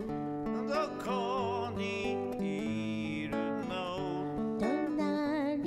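A man singing, holding long notes with vibrato, over acoustic guitar accompaniment.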